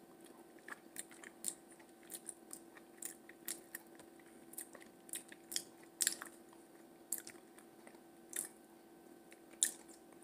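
A person chewing and biting food close to the microphone: faint, irregular short clicks and smacks of the mouth, a few a second.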